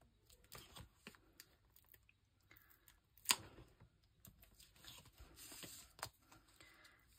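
Faint handling of paper and foam adhesive dots: light rustling and soft clicks, with one sharp click about three seconds in.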